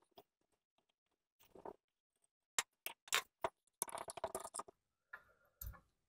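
Faint clicks and light rattles of a Briggs & Stratton carburetor being worked loose and lifted off its metal fuel tank, with a quick run of clicks about four seconds in and a soft knock near the end.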